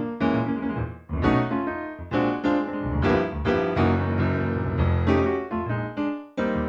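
Background music: a piano tune played at a steady, lively pace, each note struck and fading.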